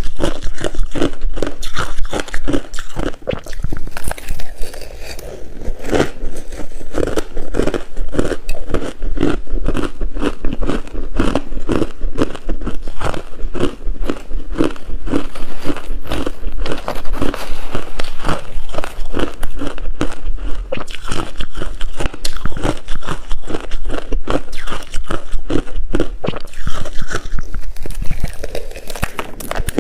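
Close-miked chewing of coarse-grained crispy ice: continuous crunching bites, several crunches a second.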